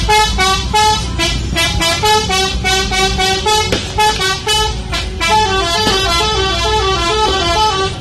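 Telolet horn, a multi-note vehicle horn, playing a quick tune of short notes that step up and down and repeat, over the steady low rumble of vehicles.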